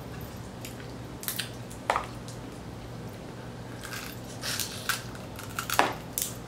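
Wet squishing and smacking of someone eating sauce-covered boiled seafood, with scattered short clicks and crackles, over a steady low hum.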